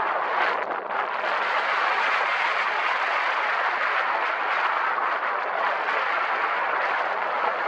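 Wind rushing steadily over the microphone, a dense even roar with no engine or voice in it.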